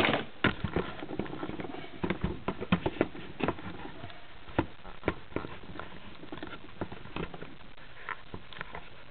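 Small plastic Lego minifigures and their display plates clicking and clattering on a tabletop. There is a rapid run of light taps over the first few seconds, then only a few scattered clicks.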